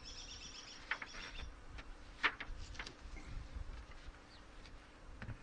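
A songbird trills on high repeated notes for about a second and a half, then a few short chirps or clicks follow, the sharpest a little after two seconds, over a low rumble.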